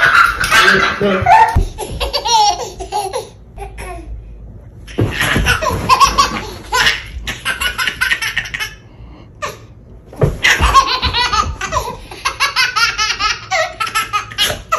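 A small child's hearty laughter in three bouts, the later two made of quick repeated ha-ha pulses.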